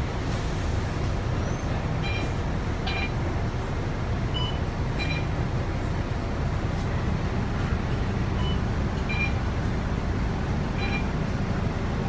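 Volvo B9TL double-decker bus running, heard from inside the passenger cabin as a steady low engine and drivetrain rumble. A few short, faint high chirps come at irregular moments.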